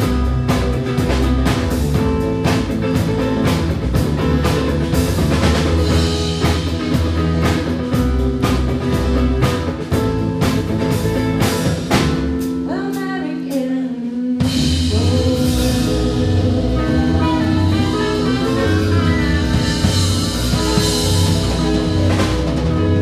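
Live band music with drum kit, bass and other instruments playing a steady rhythm; the drums drop out for about two seconds past the middle, under a single gliding line, then the band comes back in.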